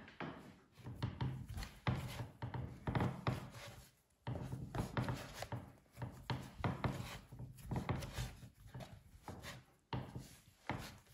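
A ball of egg pastry dough being kneaded by hand on a wooden pastry board: repeated pressing and rubbing, with dull thumps of the dough on the wood.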